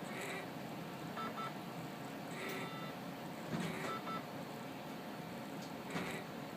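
A sleeping woman snoring softly, with a breath or snore every couple of seconds over a steady background hum. Faint short electronic beeps come now and then.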